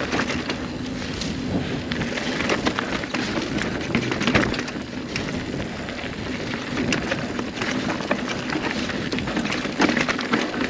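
Kona Honzo ST steel hardtail mountain bike riding a rough dirt trail: tyres crunching over dirt and rocks with a steady run of knocks and rattles from the bike. The rear tyre is at a hard 35 PSI, so the ride is harsh and bouncy.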